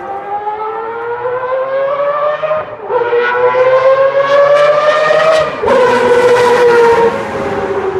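Four-rotor Mazda rotary racing engine at full throttle, a high wail climbing in pitch through the revs. It breaks for an upshift about three seconds in and climbs again. A little before six seconds the note drops and then slowly falls.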